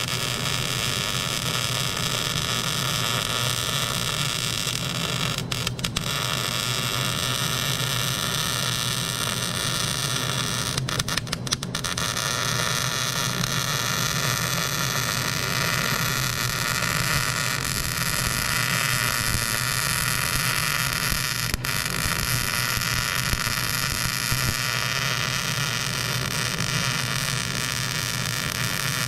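Electric arc welding on a steel trailer frame: the steady hiss of the arc as a weld bead is laid to fix a reinforcing gusset on a cracked, bent jack beam. The arc breaks off briefly a few times.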